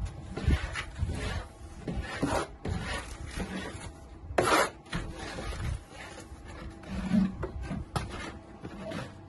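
Plasterer's trowel scraping and spreading mortar onto metal lath: a series of irregular scraping strokes, the loudest about four and a half seconds in.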